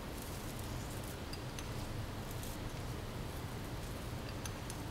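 Faint, scattered ticks of a granular sugar-and-spice mix sprinkled by hand from a small bowl onto chickpeas in a metal baking pan, over a steady low hum.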